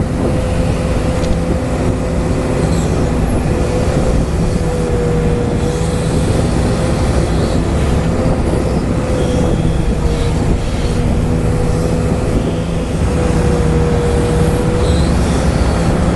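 Radio-controlled Volvo excavator working: its electric drive motors give a steady whine whose pitch wavers slightly as the boom and bucket move.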